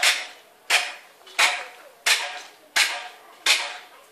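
Regular hammering: sharp strikes about three every two seconds, each with a short ringing tail.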